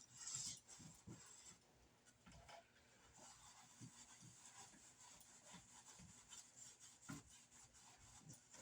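Faint rubbing and light scraping of a microfiber cloth wiping a ceiling fan blade, with small irregular ticks.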